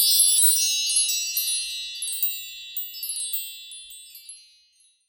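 Wind-chime-like tinkling: a cluster of high, bell-like strikes that thin out and fade away over about four and a half seconds.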